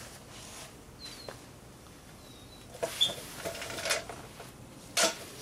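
Light metal clicks and clinks of hands handling the rear brake caliper and its bolts, a few in quick succession from a little before halfway and one more near the end. Faint bird chirps in between.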